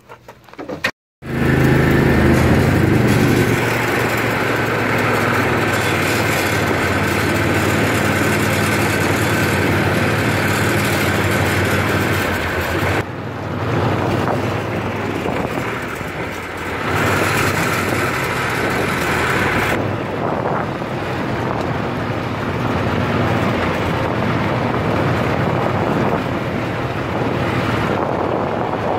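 Small utility vehicle driving along, its engine running steadily under a continuous rush of road and wind noise. It starts abruptly after a moment of silence about a second in.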